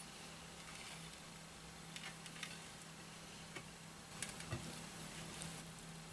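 Faint, scattered small clicks and wet ticks of eating curry and rice by hand, with a cluster a little past the middle, over a low steady hum.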